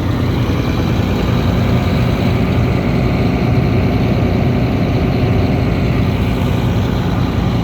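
Caterpillar C13 inline-six diesel of a 440 hp, 1600 CFM portable air compressor running steadily, seconds after a cold start at 32°F.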